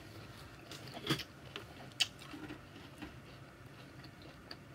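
A person quietly chewing a mouthful of salad, with a few faint clicks, the clearest about a second and two seconds in.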